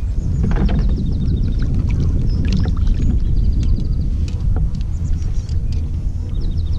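Steady low wind rumble on the microphone and water sloshing against a kayak hull, with scattered sharp clicks and a few short runs of quick ticks.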